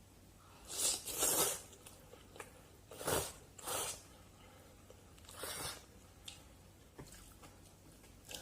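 Close-up eating sounds of somen noodles in jjajang sauce: several short, loud slurps about a second in, at three to four seconds, and at five and a half seconds, with quieter chewing between.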